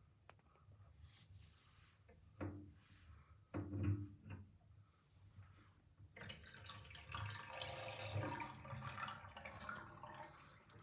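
Bathtub water draining past a grey plug in the drain, gurgling: two short gulps, then a longer run of gurgling from about six seconds in that fades near the end, closed by a sharp click.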